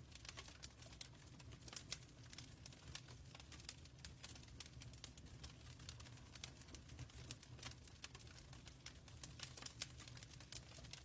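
Faint wood fire crackling in a fireplace: many irregular sharp pops and snaps over a low steady rumble.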